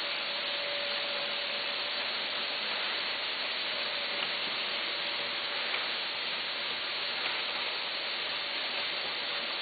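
Vertical snack-bagging machine running with a steady hiss and a faint hum, with a few faint clicks spaced a second or more apart.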